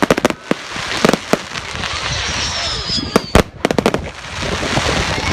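Fireworks going off: a rapid string of sharp bangs and crackles, with a high whistle sliding down in pitch about two seconds in.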